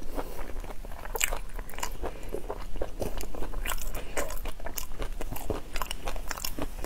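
A person chewing crunchy food close to a clip-on microphone, with many irregular crunches and mouth clicks.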